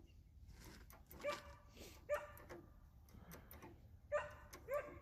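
A dog barking at the roadside, four sharp barks spaced unevenly with fainter yips between them.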